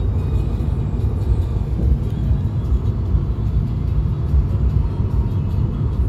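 Steady low road-and-tyre rumble of a car driving at highway speed, heard from inside the cabin.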